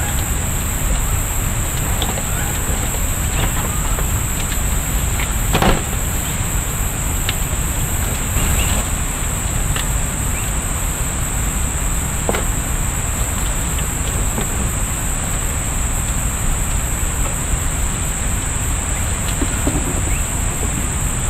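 A steady high-pitched insect chorus drones over a constant low rumble, with one sharp click about six seconds in and a few fainter ticks.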